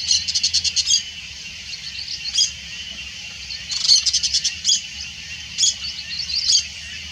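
Wild birds calling: two quick rattling trills of rapid, evenly spaced notes, about a second each, one at the start and one about four seconds in, with single sharp high notes between them, over a steady high-pitched hum.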